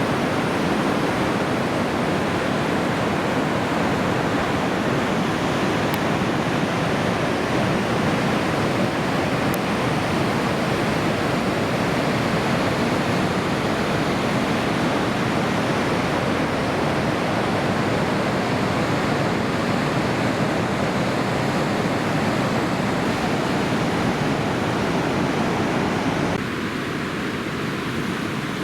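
Steady, continuous wash of heavy surf, waves breaking in a typhoon swell. It drops a little in level near the end.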